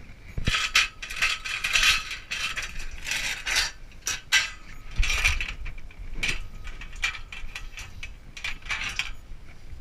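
A bundle of steel fence T-posts clanking and rattling against each other as it is lifted and carried: a fast, irregular run of metal-on-metal clanks.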